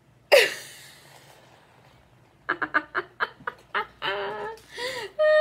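A woman laughing: a loud exclamation falling in pitch shortly after the start, then a run of about seven short, sharp laughs from about two and a half seconds in.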